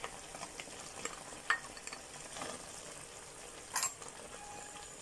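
Ground beef in tomato sauce simmering in a pan with a steady low sizzle. A few light clicks and scrapes come as mixed vegetables are tipped in from a bowl, the sharpest about a second and a half in and just before four seconds.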